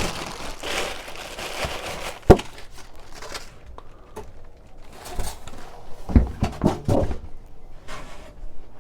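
Packaging rustling and crinkling as a boxed grinder is unpacked and handled, with one sharp knock a couple of seconds in and a few dull thumps later on.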